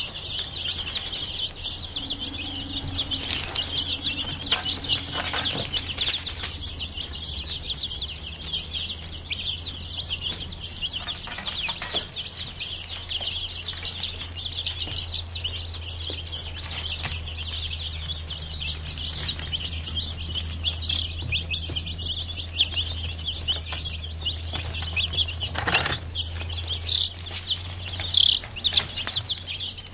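A crowd of baby broiler chicks peeping continuously, many short high chirps overlapping at once. A steady low hum runs underneath.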